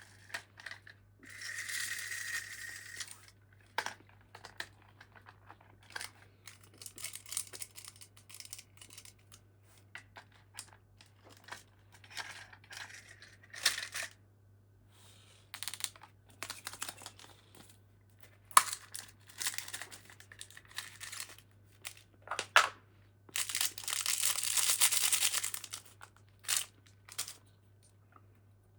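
Toy packaging being opened by hand, with two longer stretches of tearing or crinkling, one about a second in and one near the end. Between them come scattered taps and clicks.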